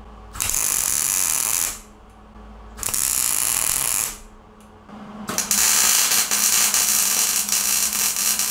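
Wire-feed (MIG) welder arcing on steel, a crackling buzz in three runs: two short tacks of about a second and a half each, then a longer weld starting about five seconds in.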